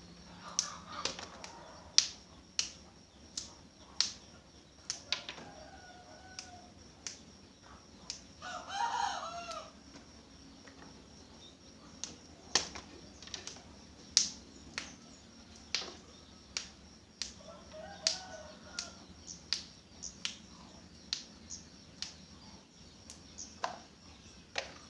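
Long beans being cut into short lengths, a crisp snap roughly once a second. A rooster crows once about nine seconds in, and a chicken gives shorter calls around five and eighteen seconds.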